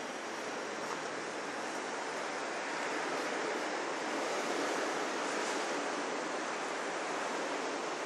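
Steady hiss of falling rain, with no distinct events, slowly growing louder.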